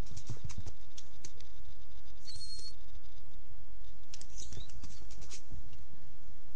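Light, quick clicks and patters in two spells, like a dog's claws on a hard floor, with a brief high squeak about two and a half seconds in.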